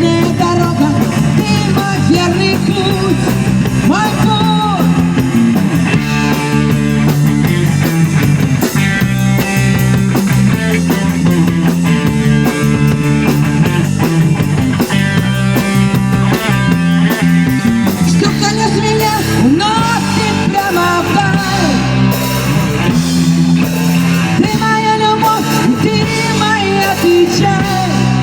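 A rock band playing, with guitars and a drum kit, and a lead line that bends and wavers in pitch twice.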